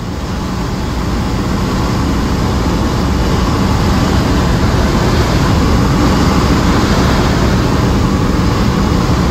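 BMW accelerating hard at high speed, from about 90 to over 110 mph, heard inside the cabin: the engine pulling under heavy throttle with loud road and wind noise. The sound builds slightly over the first few seconds and then holds.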